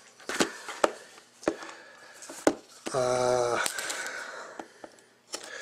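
Scattered light clicks and taps as trading-card packs and a knife are handled on a tabletop, with a short hummed "mm" from a man's voice about three seconds in.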